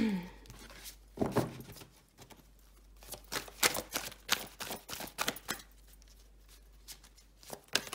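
Deck of oracle cards being shuffled and handled by hand: a run of light, irregular clicks and taps of card against card, thickest in the middle.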